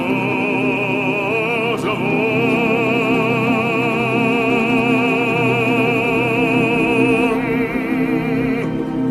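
A male voice in an operatic style holds one long note with a wide, even vibrato that breaks off about seven seconds in, over a steady low choral or instrumental drone.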